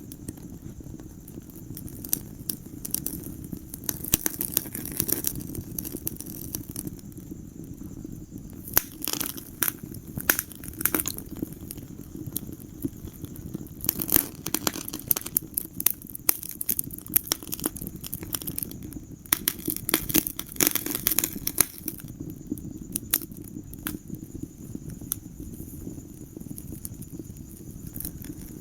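Wood fire in a fireplace crackling and popping over a steady low rumble of flames, with thicker runs of crackles about a third of the way in, around the middle, and again about two-thirds through.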